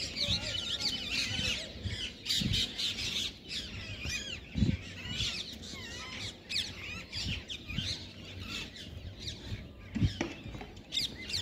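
A dense chorus of many birds chirping and squawking at once, short overlapping calls throughout, with a few low thumps.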